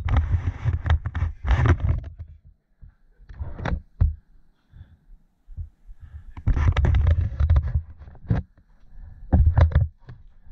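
Wind buffeting a helmet camera's microphone in deep, uneven gusts as a mountain bike descends a rough dirt trail, with clattering knocks from the bike over bumps. The noise comes in several bursts with quieter gaps between.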